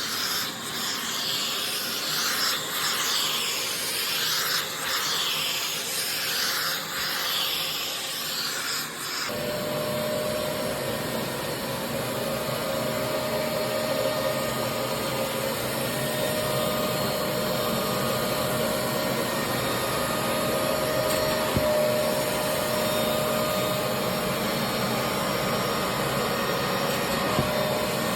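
Karcher steam cleaner hissing in repeated sweeping strokes over upholstery for about the first nine seconds, then abruptly a Karcher Puzzi 8/1 spray-extraction machine's suction motor running steadily with a constant whine.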